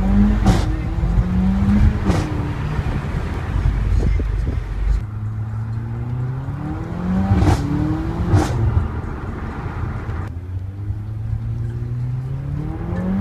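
Mercedes CLA45 AMG's turbocharged four-cylinder accelerating hard, heard from inside the cabin. The engine note climbs through the revs and drops at each upshift, with a sharp exhaust pop or crackle at the shifts: twice near the start and twice more past the middle.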